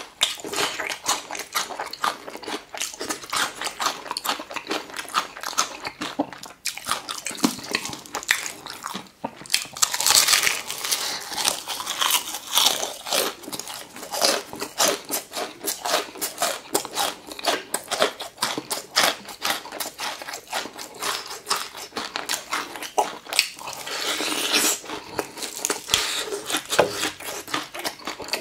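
Close-miked eating: a cube of pickled radish chewed at first, then crunchy bites into crispy fried chicken crust, with wet chewing between dense crackling crunches. The crunching is loudest about a third of the way in and again near the end.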